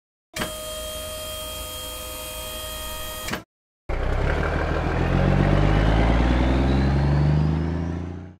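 Cartoon sound effects of a dump truck: first a steady motor whine as the tipper body lowers, then after a brief gap a truck engine pulling away, its pitch rising as it speeds up before it fades out near the end.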